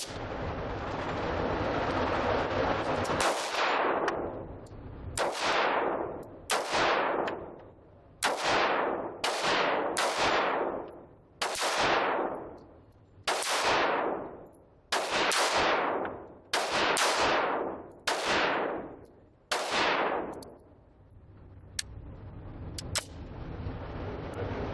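Pistol fired about thirteen times, shots one to two seconds apart, each sharp crack followed by a long echoing decay. A steady rushing noise fills the first three seconds before the first shot.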